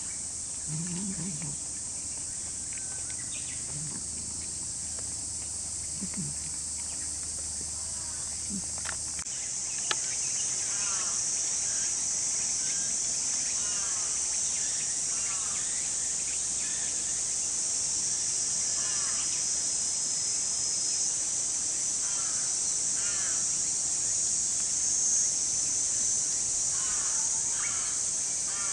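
Steady high-pitched insect chorus throughout. From about ten seconds in, crows cawing in short series of two or three calls.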